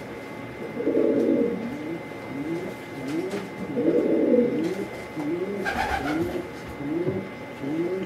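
Domestic pigeon cooing: a run of short rising-and-falling coos, about one and a half a second, with louder, fuller calls about a second in and around four seconds in.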